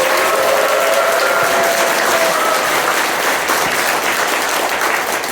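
Audience applauding, a dense steady clatter of many hands, with a few held calls from voices among it in the first half. It thins out near the end.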